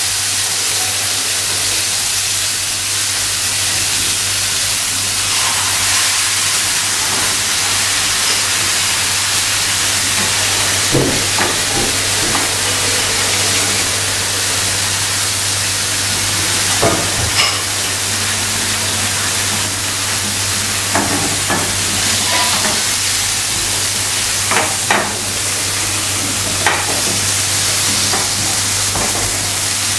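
Fish fillets sizzling in oil in a hot ridged grill pan over a gas flame: a steady frying hiss, with a few short knocks of the pan and utensils scattered through it.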